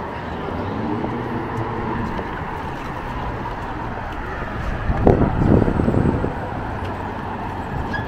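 Road traffic on a city street: a steady hum of vehicles that swells louder for about a second and a half around five seconds in.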